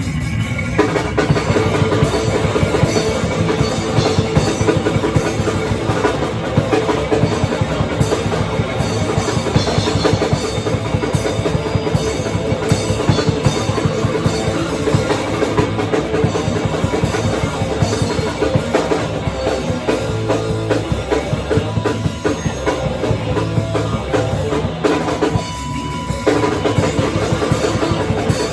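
A live rock band playing a fast, loud encore song, with a busy drum kit pounding throughout.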